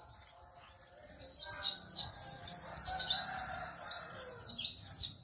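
White-eye (pleci) singing: a rapid, high-pitched run of short downward-slurred chirps, about four or five a second, starting about a second in.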